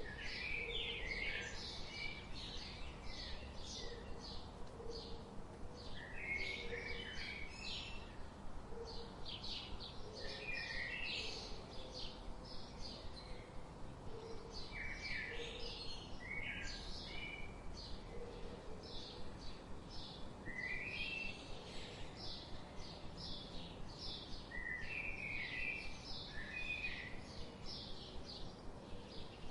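Wild songbirds chirping and singing, many short call phrases following one another without pause, with a softer low call repeating underneath and a steady background hiss.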